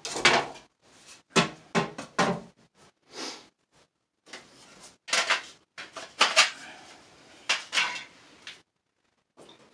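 A run of short clicks and knocks from hand tools being handled on a tiled floor: a wooden folding rule's joints clicking as it is opened out and laid down, and a plastic torpedo level set against a wooden straight edge near the end.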